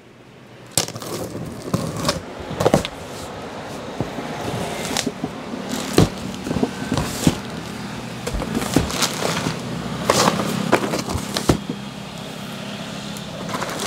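Packing tape being peeled and ripped off a large cardboard carton, then the cardboard flaps being pulled open, with steady rustling of cardboard and scattered sharp rips and knocks.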